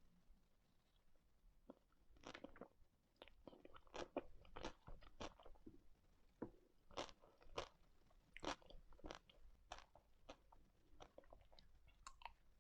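A person eating ice cream close to the microphone: quiet, irregular crisp bites and chewing, with many short crackling clicks.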